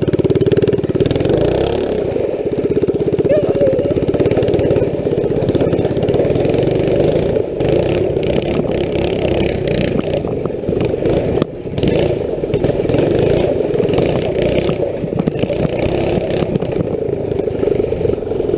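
Go-kart's small engine with a loud aftermarket exhaust running hard while riding, its pitch rising and falling with the throttle.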